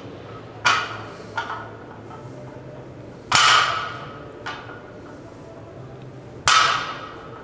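A loaded barbell clanking down on the gym floor during conventional deadlift reps: three loud metallic clangs about three seconds apart, each ringing briefly, the first two followed about a second later by a lighter knock of the plates.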